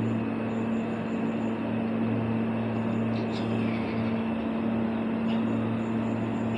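A steady low hum over an even background noise, holding one level throughout, with the lower note swelling and fading every second or so.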